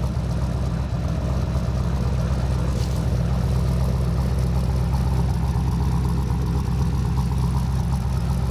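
Freshly tuned twin-turbo LS V8 in a Toyota 80 Series Land Cruiser idling steadily, heard at the rear exhaust. Not obnoxiously loud, but clearly audible.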